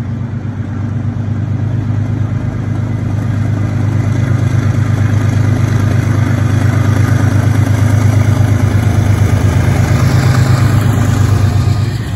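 Diesel locomotives hauling a double-stack container train, their engines droning steadily and growing louder as they approach and pass close below.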